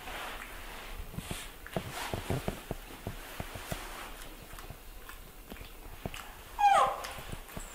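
Soft scattered taps and rustles, then near the end one short, loud, high squeal from a young animal, dropping in pitch.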